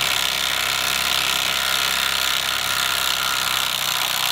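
Ryobi ONE+ P263 18V cordless 3/8-inch impact wrench hammering steadily at its highest speed setting on a rusted trailer-hitch bolt. The bolt is stubborn, and the wrench has to work at it for a while before it breaks loose.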